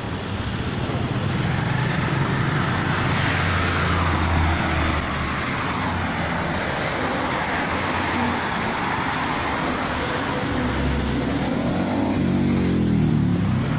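Outdoor road traffic: vehicle engines running and passing, with one engine's pitch rising and falling near the end.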